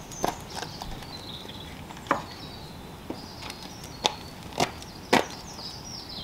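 About half a dozen sharp, irregularly spaced wooden knocks, typical of rafter and header timbers being knocked together during a timber-frame dry fit. Faint birdsong chirps sound between the knocks.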